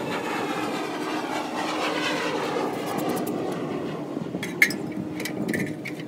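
Distant engine noise of something passing swells over the first few seconds and then eases off. Near the end come several sharp metallic clicks and one louder knock as an aluminium extension ladder is climbed down.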